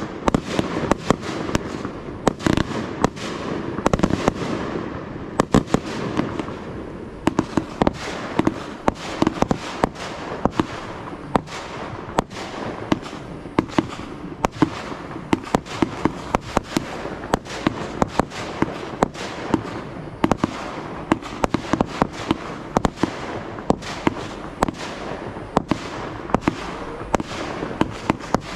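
Aerial fireworks display going off in a rapid, unbroken string of sharp bangs, several a second.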